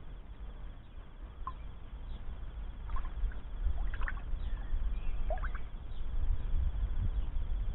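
Water plinking, dripping and lightly splashing as a hand works through plant material in a plastic tub of water: a few short, separate plinks over a low rumble that slowly grows louder.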